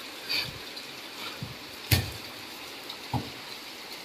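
Steady hiss of heavy rain on a wet concrete court, with a sharp slap of a volleyball being hit about two seconds in and a softer hit a little over a second later.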